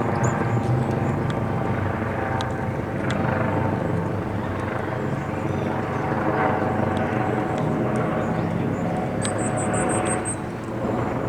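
Helicopter passing overhead, its steady drone covering everything, with faint high bird chirps and a quick run of about seven high notes near the end.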